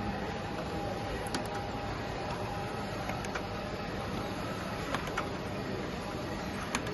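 Sprinter 1000 digital paper-bag printer running, feeding printed bag blanks out onto its conveyor belt: a steady mechanical whir with a few sharp clicks scattered through it.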